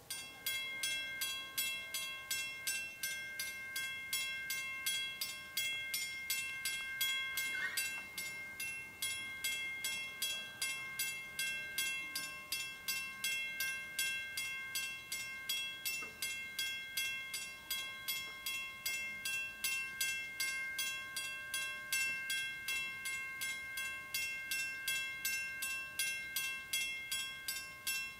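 Railroad grade-crossing warning bell ringing in rapid, even strikes, about three a second, each ringing on briefly. It sounds while the gates lower, the signal that a train is approaching the crossing.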